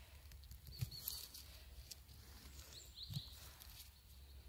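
Faint rustling and handling noise as funnel chanterelles are picked by a gloved hand from moss and needle litter, with two soft knocks, about a second in and a little after three seconds.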